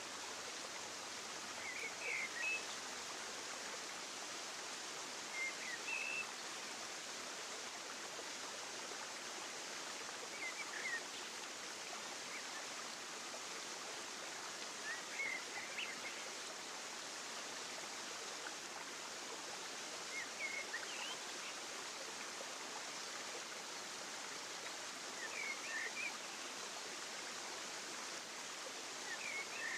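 Steady outdoor background hiss with a short, high chirp recurring about every five seconds.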